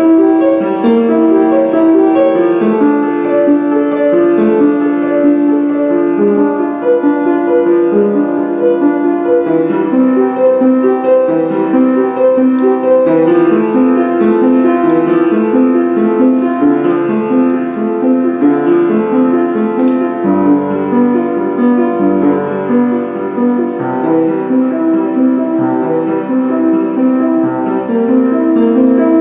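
Slow keyboard music of held chords, moving from chord to chord at an even, unhurried pace.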